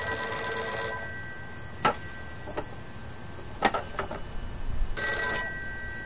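The bell ringer of a 1941 Western Electric 302 rotary-dial telephone ringing for an incoming call. One ring dies away about a second in, a few sharp clicks follow, and a brief second ring comes near the end.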